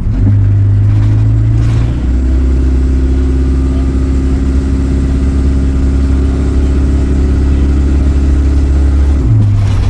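Diesel engine of a single-deck bus, heard from on board, droning steadily under way. Its hum drops to a lower pitch about two seconds in and steps back up near the end, as the automatic gearbox changes gear.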